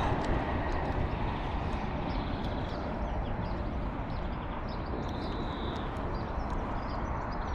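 Wind buffeting the microphone in a steady low rumble, with faint, scattered bird chirps above it.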